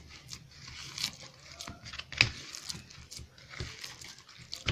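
Hands kneading a soft, sticky dough of soaked semolina, grated coconut and crumbled bread in a small bowl: irregular squelches and clicks, the sharpest a little after two seconds in.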